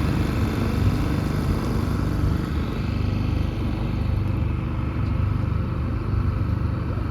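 A sailboat's engine running steadily, motoring the boat under way with the sails down.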